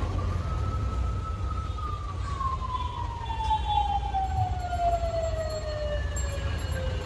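Electric metro train's motor whine falling slowly and steadily in pitch as the train slows, with a fainter higher tone sliding down alongside it, over a steady low rumble.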